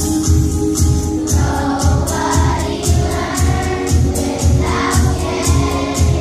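Children's choir singing along to music with a steady drum beat, about two beats a second.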